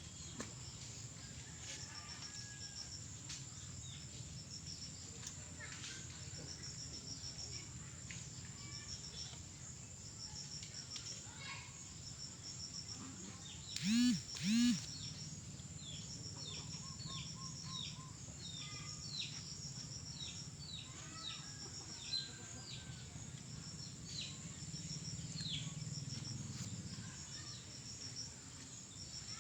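Crickets chirping in short evenly spaced pulse trains over a steady high insect whine, with birds chirping throughout. About halfway through come two short loud cries in quick succession.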